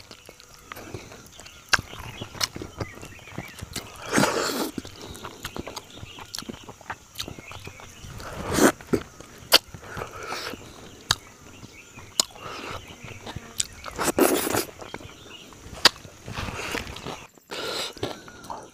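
Close-up eating sounds: fingers tearing apart a cooked katla fish head and mixing it with rice, with many small wet clicks and cracks. Three louder wet bursts of mouth sounds come about 4, 8 and 14 seconds in.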